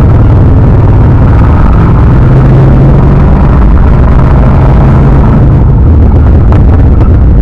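Car engine running while driving, a steady, loud low drone mixed with road noise; the engine note swells a little about two seconds in.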